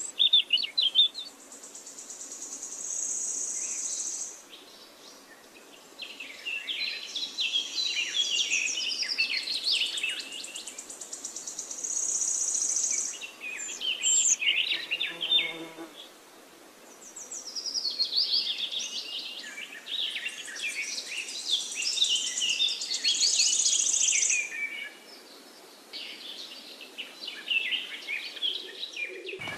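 Birds chirping and singing, with insects buzzing in high-pitched spells lasting a few seconds that come and go.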